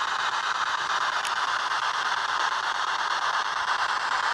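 Steady radio static hiss from a ghost-hunting spirit box, left running while the hunters listen for voices in the noise, with one faint tick about a second in.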